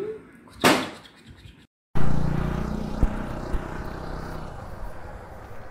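A short sharp noise about half a second in, then a brief silent gap, then a low outdoor rumble that starts loud and slowly fades.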